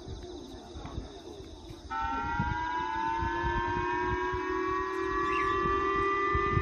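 Japanese civil-protection warning siren (the J-Alert missile-warning siren) over a municipal outdoor loudspeaker system, starting abruptly about two seconds in as several stacked tones that slowly rise in pitch; it warns of a North Korean missile launch and calls people to shelter.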